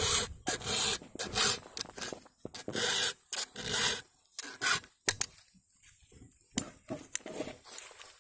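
Chainsaw chain sharpened by hand with a file: a run of short rasping strokes, which stop about four seconds in, followed by a few light clicks.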